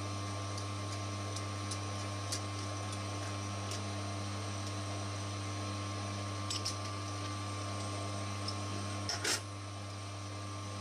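Steady low hum with a faint whine in a metalworking shop. A few light metallic clicks come from a threaded steel tube being handled in a lathe chuck, with a short louder clatter about nine seconds in.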